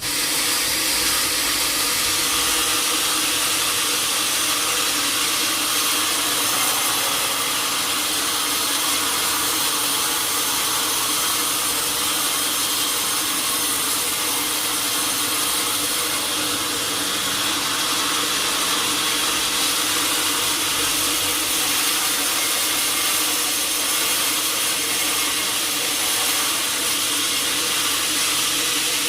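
Sawmill saw cutting through a teak log: a steady, hissing noise with a faint hum underneath.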